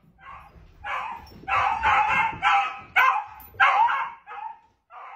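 A dog barking repeatedly, about two barks a second, growing louder after the first second and fading again near the end.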